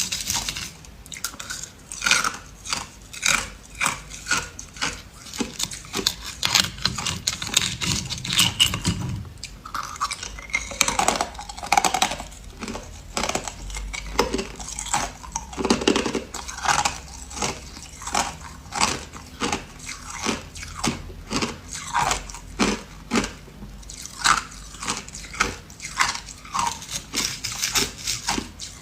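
Ice being bitten and chewed close to the microphone: a rapid, irregular run of sharp crunches and cracks, several a second, as the ice is crushed between the teeth.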